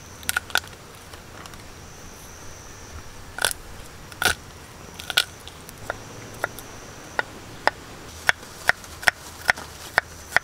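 Kitchen knife chopping garlic, then a shallot, on a round wooden log-slice board. There are a few scattered knocks at first. From about six seconds in they turn into a steady run of chops, roughly two a second, that grows louder near the end.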